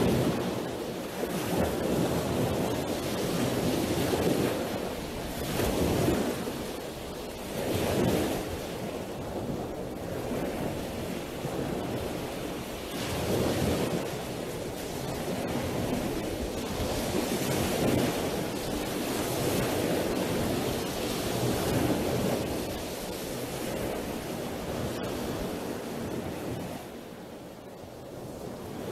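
Sea waves washing onto a shore, a surf sound effect, surging and falling back every couple of seconds; it eases off a little near the end.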